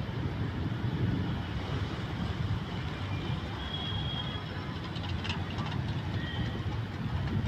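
Steady low rumble of vehicle noise, with a few faint, short high tones over it.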